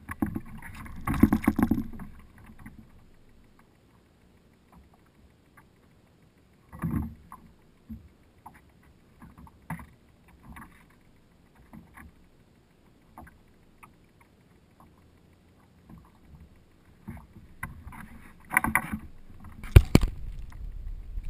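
Handling noise aboard a plastic Hobie Pro Angler kayak: knocks, bumps and rustles of gear being moved. There is a burst of it at the start and a bump about seven seconds in, with little in between, then a cluster near the end ending in one sharp, loud knock close to the camera.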